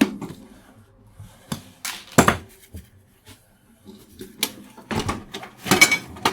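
Metal fixture parts and hand tools clinking and knocking on a workbench: a handful of separate sharp clicks and clanks, the loudest about two seconds in and a quick cluster near the end.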